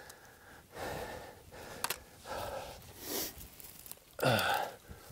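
A man breathing hard in quick, audible puffs, worked up after the kill, ending in a louder voiced exhale about four seconds in. A single sharp click comes about two seconds in as the muzzleloader is handled to remove its cap.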